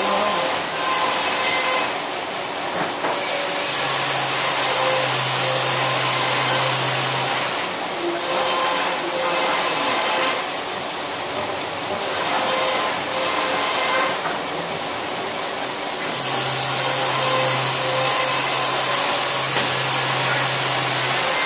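Wood-cutting machine with a large spinning disc running continuously, a steady mechanical whine and hiss that changes every few seconds as pieces of wood are fed into it. A low hum comes in twice, in the middle and again near the end.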